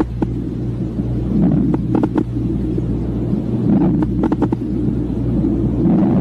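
Lung sounds heard through a stethoscope on the chest: a low rumbling breath noise that swells and fades about every two seconds, with scattered brief clicks.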